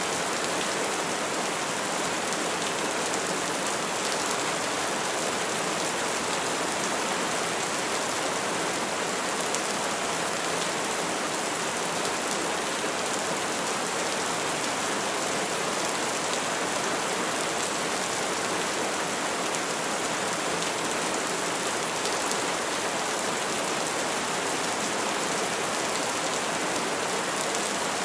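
Steady rain falling, an even, unbroken hiss with no thunderclaps in this stretch.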